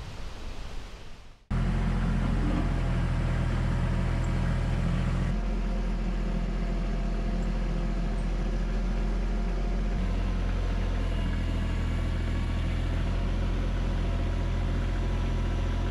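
A diesel engine running with a steady, low drone, its tone shifting slightly about a third of the way in and again past the middle. Before it, a soft rushing noise cuts off about a second and a half in.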